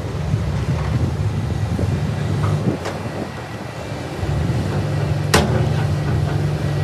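Heavy dump truck's diesel engine running with a steady low hum that picks up and grows louder about four seconds in as the tipper bed comes down and the truck moves off. A single sharp bang sounds just past five seconds, with scattered light clicks of rock.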